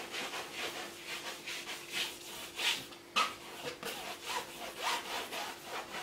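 Palette knife scraping and spreading oil paint across a stretched canvas in quick, irregular strokes.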